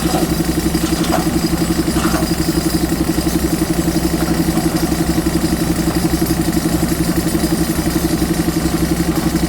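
JCB 3DX Super backhoe loader's diesel engine running steadily with an even, fast pulsing beat. A few faint clicks come in the first two seconds.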